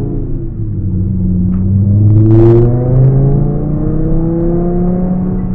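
Car engine accelerating, heard from inside the cabin, its pitch rising slowly and steadily, with a brief rush of noise about two and a half seconds in.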